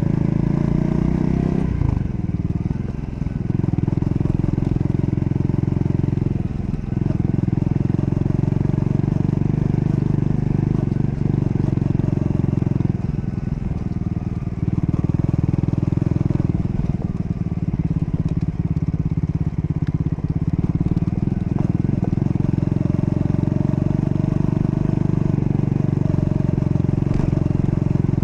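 Triumph Scrambler 400 X's 398 cc single-cylinder engine running under way, with several short dips in the engine note where the throttle is eased or a gear is changed.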